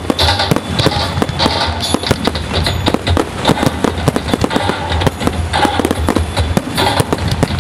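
Fireworks going off: a rapid, continuous run of sharp bangs and crackles, with music playing underneath.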